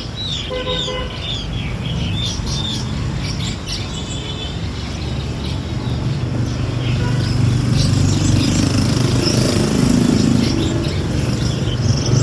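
Several songbirds chirping and calling in short, overlapping phrases, over a steady low rumble of traffic that grows louder about halfway through.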